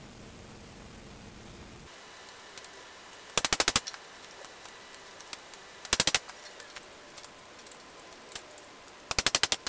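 Three short bursts of rapid hammering from a power tool driving the cam bearing removal tool, knocking worn cam bearings out of a Chevrolet Vortec 350 (5.7 L) V8 block.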